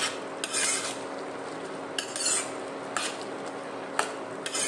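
A metal ladle stirring diced pumpkin in a stainless steel pot, scraping against the pan in about five short strokes.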